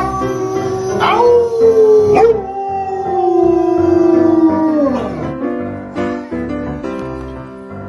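A dog and a man howling together in long drawn-out howls that rise at the start, hold, and slowly slide down in pitch, ending about five seconds in. Background music plays throughout and carries on alone after the howling stops.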